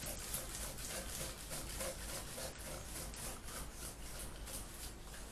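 Soft rhythmic scraping strokes, about four a second, as salt is worked into tap water to make a brine.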